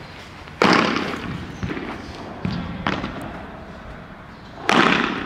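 Padel racket striking the ball on overhead vibora shots: two loud, sharp pops with a short ringing tail, about a second in and near the end, and fainter knocks in between.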